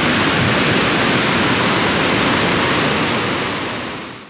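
A river in flood rushing through rapids: loud, steady churning of fast, muddy water. It fades out near the end.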